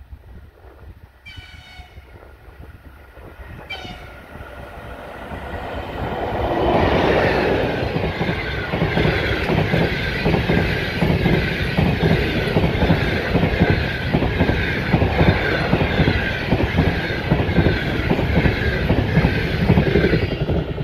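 EP20 electric locomotive sounding two short horn blasts, then hauling a passenger train past at speed. The wheels clatter in a steady rhythm over the rail joints.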